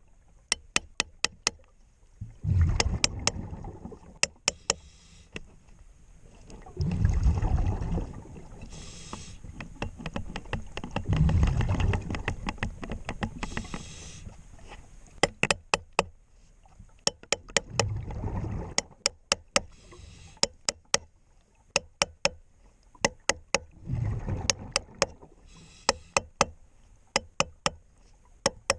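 Underwater sound of a scuba diver at work: exhaled regulator bubbles rumble in a burst every few seconds, between quick runs of sharp clicking taps.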